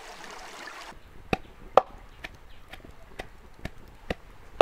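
Stream water running for about a second. Then, after a cut, a steady run of knife chops, a little over two a second.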